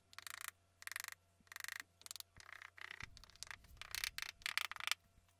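A wooden block tapping a wooden casting pattern down into molding sand, with the pattern pressed and grating into the sand: about a dozen short, gritty taps and scrapes at an uneven pace.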